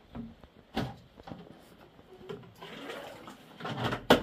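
Water being poured and splashed into a metal basin from a plastic jug, with a knock about a second in and a sharp knock near the end as the vessels are handled.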